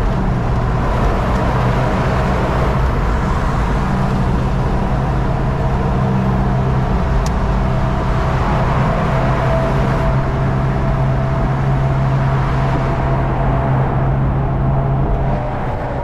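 Hummer H1 cruising at freeway speed with the top down: a steady low engine drone under loud wind and road noise, easing off slightly near the end.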